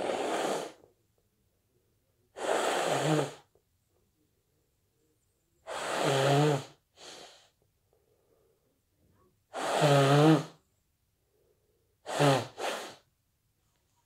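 Person with a stuffy head cold sneezing repeatedly, a sneeze about every three to four seconds, some with a short second burst right after.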